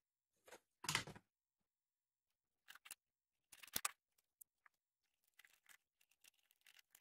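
Mostly near silence, broken by faint handling sounds: a soft knock as a wooden board is set down, a sharper click a little under four seconds in as the metal collar lock is placed on the wood, then light scratchy ticks of a pencil tracing around it.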